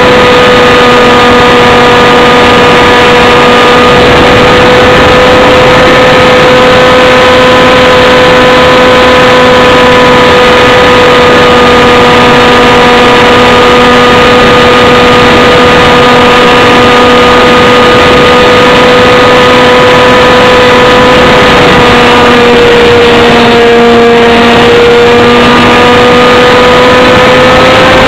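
Aircraft motor and propeller running at a steady high pitch, heard from a camera on the airframe with loud wind rush over it. The pitch sags briefly a little past twenty seconds in, then rises again near the end.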